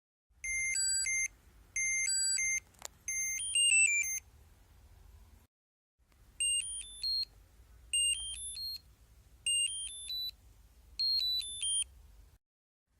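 AirBolt Bluetooth smart travel lock's built-in beeper playing short electronic jingles of a few quick tones each, seven in all, the later ones stepping upward in pitch. A single sharp click comes about three seconds in.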